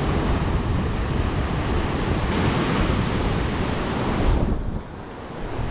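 Ocean surf rushing on a sandy beach, with wind buffeting the microphone. The rush swells louder a little past two seconds in, then drops away sharply near the end.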